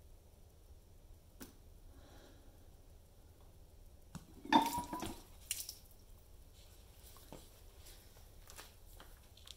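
A drinking glass of juice knocked over onto a wooden tabletop: a sudden clatter with a brief ringing note from the glass, then a second sharp knock about a second later, among faint handling clicks.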